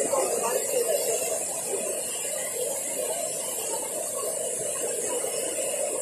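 Steady rush of water from a dam spillway's discharge jet, the water shooting out and breaking into heavy spray, with a constant hiss over it.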